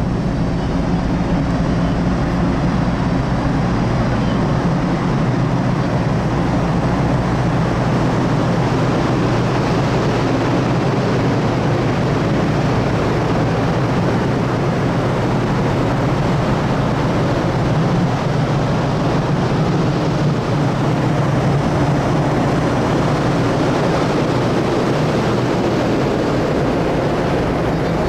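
Steady low drone of the car ferry Ferry Fukuoka II's engines and machinery, heard from the open deck as a constant hum under an even rush of noise.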